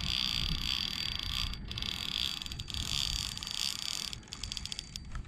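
Fishing reel drag buzzing as a big fish pulls line off the spool. The buzz comes in surges and breaks into rapid ratchet-like clicks near the end.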